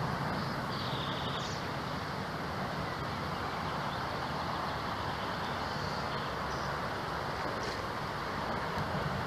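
Steady rushing of a river's current, heard from the bank as a constant even noise, with a few faint high chirps over it.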